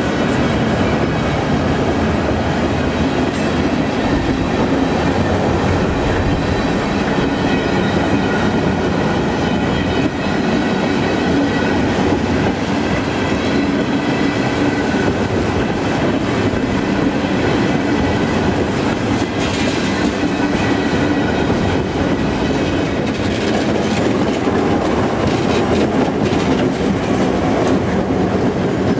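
A freight train of empty aluminum ingot flatcars rolling past at close range: a steady rumble of steel wheels on the rails with a clickety-clack as the trucks pass.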